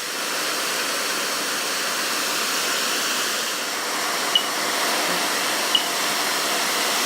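Hair dryer blowing steadily, heating the sensor of a mains heat alarm to set it off. Two brief high chirps come about four and a half and six seconds in.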